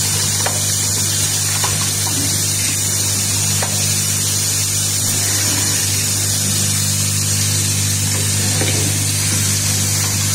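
Automated screw-driving assembly machine running: a steady low hum under a constant hiss, with a few faint clicks.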